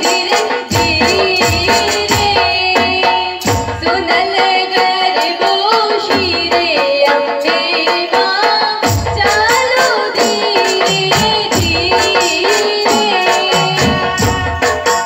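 Live Gujarati garba music: a woman singing into a microphone over electronic keyboard and a steady, fast percussion beat.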